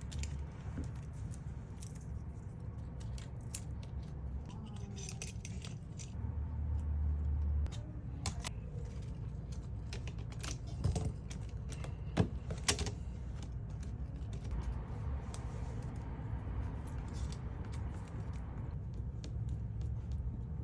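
Scattered light clicks and clinks of small tools and parts being handled on a phone during a screen repair, a few sharper taps near the middle, over a steady low hum.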